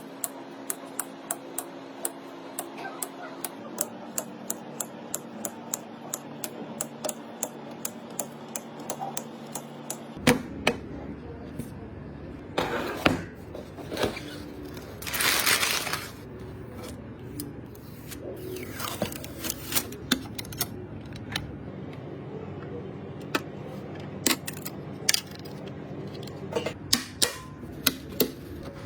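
Hands assembling a PC: a run of small, evenly spaced clicks, about two a second for the first ten seconds, then irregular clicks and taps of parts and connectors. There are two brief hissing rustles in the middle, over a faint steady hum.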